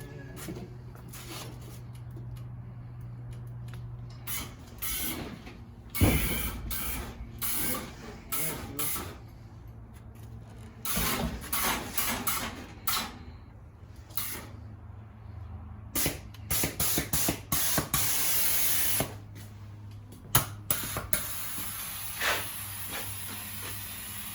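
Air-ride suspension on a bagged 1985 Chevy C10 worked from its switches: repeated short hisses of compressed air through the valves as the air bags fill and dump, with a longer hiss about 17 seconds in. A steady low hum runs underneath.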